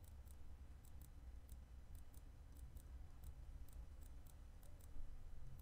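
A faint, quick run of computer mouse clicks, about three or four a second, as points are toggled hidden one after another. A low steady hum lies underneath.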